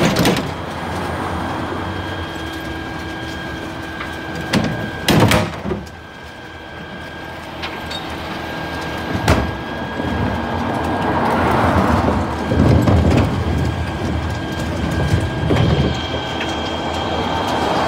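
Scania P320 refuse truck collecting bins: its rear bin lift cycling with a steady whine, sharp bangs of bins against the lift about once at the start, around five seconds in and around nine seconds in, then louder rushing, rumbling swells in the second half as bins are tipped and handled.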